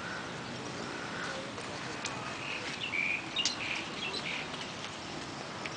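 Birds chirping, a burst of short calls about halfway through, over steady outdoor background noise.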